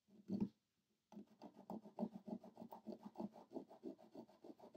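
Nail file rubbed back and forth across fingernails: one short scrape, then from about a second in a quick, even run of filing strokes, about seven a second.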